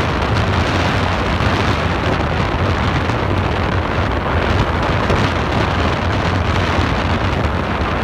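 Beehive Geyser in full eruption: a loud, steady rushing hiss of water and steam jetting from its cone, with a low rumble beneath.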